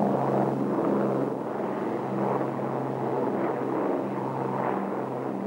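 Avro Lancaster's four Rolls-Royce Merlin V-12 piston engines running together in a steady, even drone.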